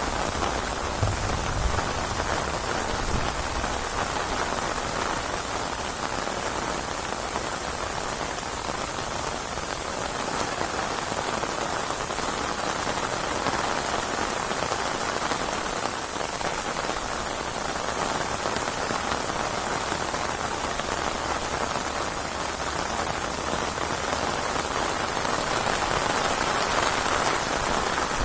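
Steady rainfall: rain pattering on surfaces, an even hiss with no let-up.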